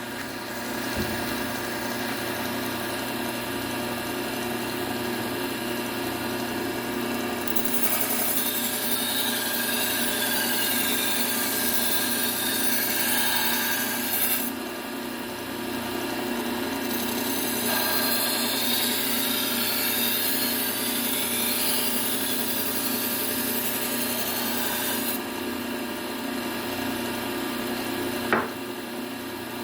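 Low-speed belt sander running steadily with a Trizact A30 (600 grit) abrasive belt, a kitchen knife blade ground along it in two passes that add a hissing grind over the motor's hum: the edge being refined after apexing. One pass runs from about 7 to 14 seconds in, the other from about 17 to 25 seconds in, with a short knock near the end.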